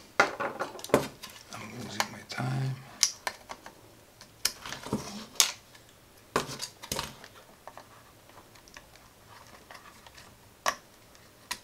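Small clicks, taps and light clatter of a circuit board and hand tools being handled and set down on a table. The tapping is busy for the first several seconds, then thins out, with one more sharp tap near the end.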